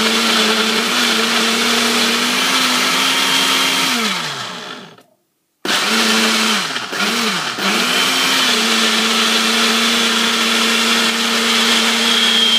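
Excelvan Nutri Extractor personal blender motor running at full speed, blending frozen fruit and orange juice into a smoothie. About four seconds in it spins down. After a short silence it is pulsed twice briefly, then runs steadily again.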